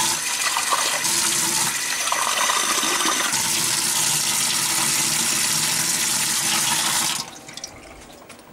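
Water running steadily from a tap, shut off about seven seconds in.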